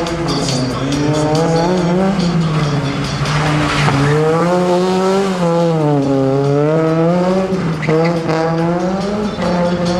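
Rally car engine revving up and down over and over, its pitch rising and falling every second or two, with tyres squealing and a burst of tyre noise about three to four seconds in.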